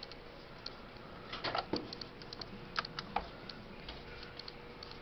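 Scattered light clicks and taps of hands handling things close to the microphone. There is a cluster about a second and a half in and two sharper clicks near three seconds, over a faint steady hum.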